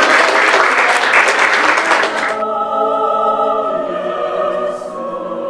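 Congregation applauding, cut off suddenly about two seconds in by a choir singing with sustained, held notes.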